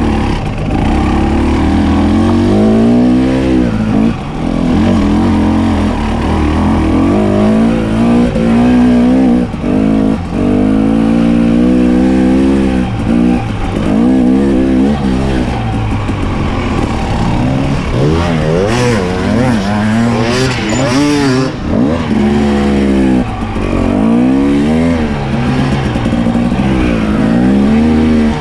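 Off-road motorcycle engine on a trail ride, the throttle opening and closing again and again so the pitch keeps climbing and dropping. A stretch of clatter comes about two-thirds of the way through.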